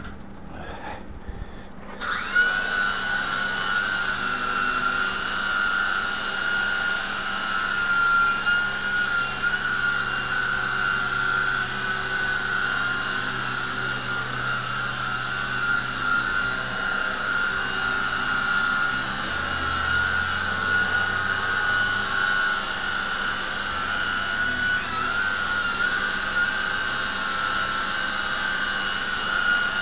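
Small electric motors of a Double Horse DH 9074 RC helicopter spinning up about two seconds in, then running with a steady high whine. The pitch dips briefly and recovers late on, as the throttle is eased.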